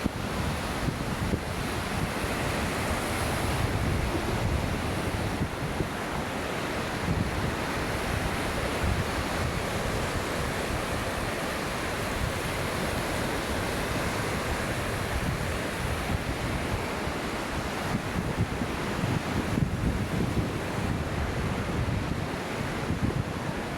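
Waves washing onto a beach in a steady surf, with wind buffeting the microphone in low gusty rumbles.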